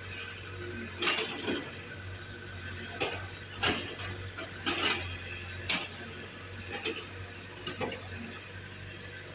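Excavator engine running steadily under about eight irregular metallic clanks and knocks, as the machine's bucket works the soil.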